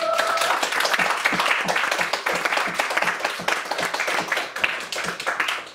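Audience applauding, many hands clapping densely, with a brief voice cheering at the start.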